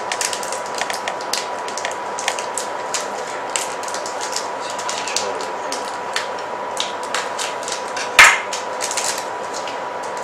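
Small irregular clicks and crackles of a chocolate bar's wrapper being handled and a knife cutting on a cutting board, with one sharp knock about eight seconds in.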